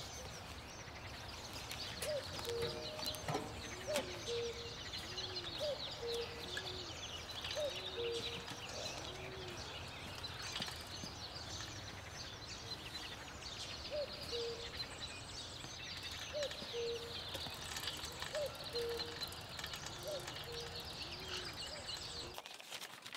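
Outdoor birdsong: many small birds chirping and twittering, with a lower, soft call repeated about once a second. The ambience cuts off about a second before the end.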